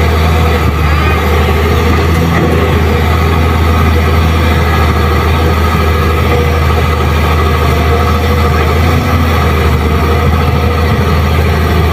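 Diesel engine of a Kobelco SK200 hydraulic excavator running steadily as it works, a continuous low drone with no sharp knocks.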